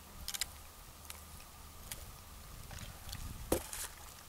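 A few faint clicks, then a sharp knock about three and a half seconds in as a paper drink cup is set down, over a low background rumble.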